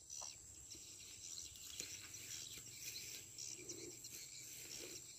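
Faint rice-field ambience: a steady, high insect chirring, with a few soft scattered ticks.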